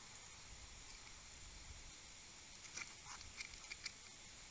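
Two striped skunks squabbling over food, with a quick run of about half a dozen short, sharp territorial sounds about three seconds in. Under them is a faint steady hiss.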